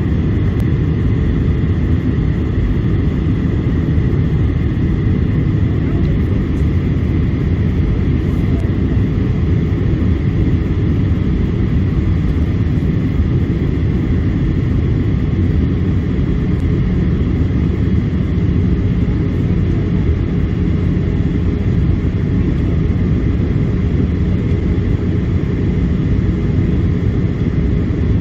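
Boeing 737-800 in flight, heard from inside the cabin: a steady low drone of engines and airflow that holds even, with a faint thin tone riding above it.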